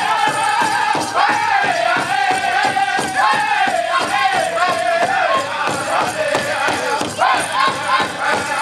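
Powwow drum group playing a contest song: a steady beat on a big drum under high-pitched group singing whose melody steps down in pitch in long phrases.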